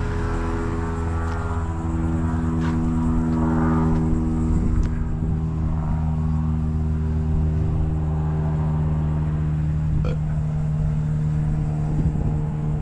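Vehicle engine running steadily at an even pitch, with a few faint knocks.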